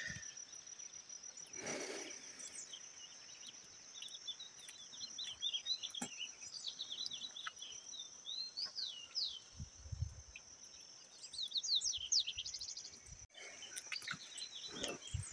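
Birds chirping and calling in quick rising and falling whistled notes over a steady, high-pitched insect drone. There is a low thump about ten seconds in.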